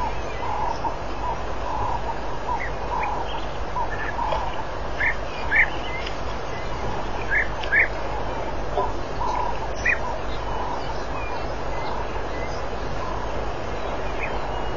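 Scattered short chirping calls, some high and squeaky, others lower, coming singly and in pairs at irregular intervals, over a steady background hiss.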